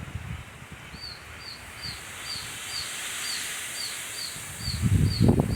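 Baby birds giving high, short begging calls over and over, about two a second, starting about a second in. Behind them is a steady hiss of heavy rain, and near the end wind rumbles on the microphone.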